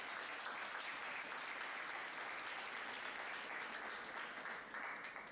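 Audience applauding, a dense crackle of many hands clapping at once.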